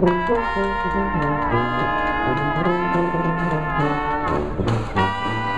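A New Orleans-style jazz brass band playing: horns hold long notes over a bass line that steps from note to note.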